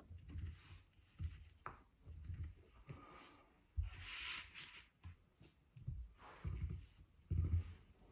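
Foam roller rolling back and forth under the calves on a hard floor: a series of low rumbling rubs, roughly one a second, with a brief hissing rub about four seconds in.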